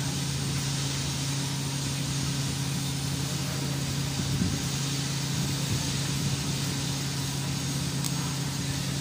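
TIG welding setup running: a steady low buzz with a fainter overtone and an even hiss, unchanging throughout.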